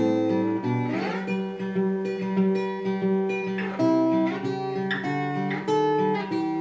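Acoustic guitar being played, several notes ringing together with new notes and chords struck throughout, picked up by a camera's built-in microphone about 10 feet away.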